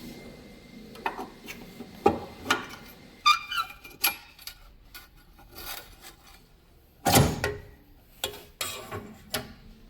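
Irregular knocks, clicks and clatter of tools and parts being handled during printer repair work, with the loudest knock about seven seconds in.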